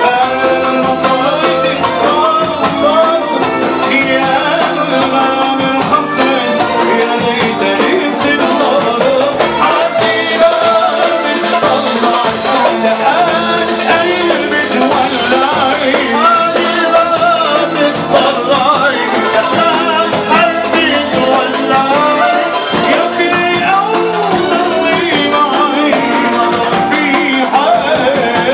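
Loud dance music with a singer, playing steadily without a break.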